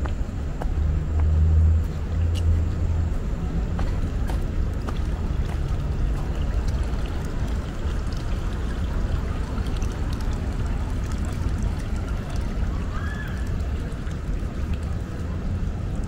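Outdoor ambience dominated by a low, uneven rumble, loudest for a moment about a second in, with faint scattered clicks over it.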